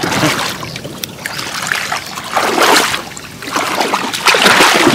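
Shallow water splashing and sloshing in irregular surges, loudest about two and a half and four and a half seconds in.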